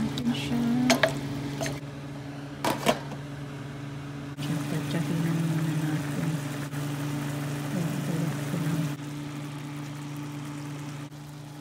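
Shrimp, chicken liver and onion cooking in a steel pot, sizzling and bubbling in their own juices over a steady low hum, with a few sharp clicks of a utensil against the pot about a second in and near three seconds in.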